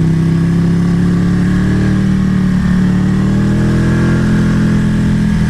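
Ducati motorcycle's V-twin engine running at fairly steady revs while riding.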